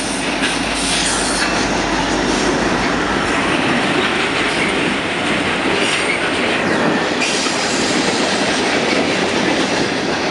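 CN freight train passing close by: a string of diesel locomotives runs past first, then box cars and tank cars roll by, their steel wheels running on the rails. It is a loud, steady noise with a low rumble early on that thins as the locomotives give way to the cars.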